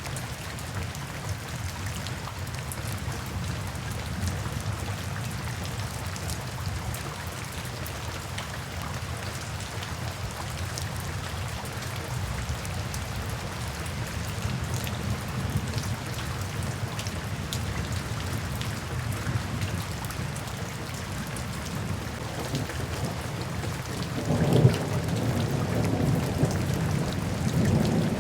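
Steady gentle rain falling with fine pattering drops over a low, continuous rumble of thunder. A little after three-quarters of the way through, a louder roll of thunder swells up and rumbles on.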